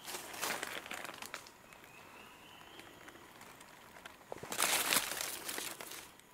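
Dry leaf litter rustling and crunching underfoot and under hand, in two bursts: one at the start and a louder one about four and a half seconds in. Between them a faint, slowly rising whistle-like tone sounds in the background.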